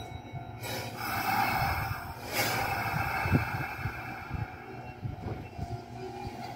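Kintetsu electric train rolling slowly into a station platform, with a hiss about a second in and a few low knocks as it comes.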